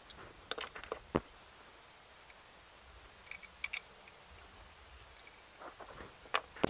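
Screwdriver clicking and scraping against the breaker plate and parts inside an open MerCruiser 3.0L distributor. The noises are scattered small clicks, with one sharper knock about a second in and a cluster of clicks near the end.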